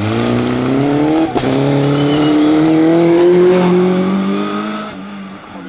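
Racing sidecar outfit's engine accelerating hard out of a bend, the pitch climbing, dropping at a gear change about a second in, then climbing again. It fades near the end as the outfit pulls away.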